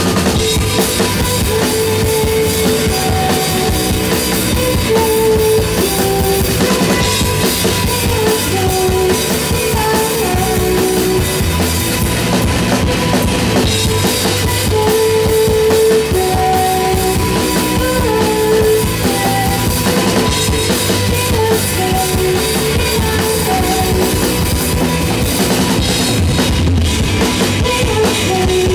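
Rock band playing live, loud and steady: a full drum kit with bass drum and snare under electric guitars and bass, with a short repeating melody line on top.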